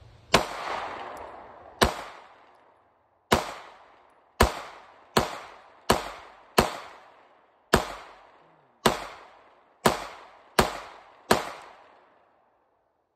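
Twelve pistol shots from a SIG Sauer P365X 9mm handgun, fired one at a time at an unhurried pace of roughly one a second, each shot followed by a long fading echo.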